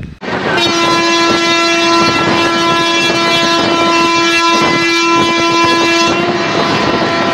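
Train horn sounding one long, steady blast that starts about half a second in and stops about six seconds in, over the running noise and clatter of the moving train.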